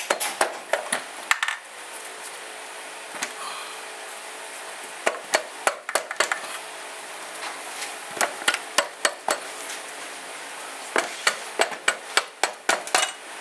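Red dead-blow mallet striking the tabs of a KTM RFS engine's aluminium crankcase halves, in about four bursts of quick blows, to split the cases apart.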